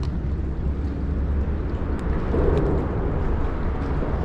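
Wind buffeting the microphone: a steady low rumble, with a stronger gust about two and a half seconds in.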